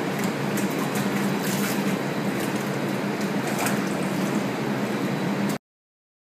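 Water splashing and sloshing as a young sea otter swims and paddles in a shallow tub, with sharp splashes scattered through it over a steady low hum. It cuts off suddenly near the end.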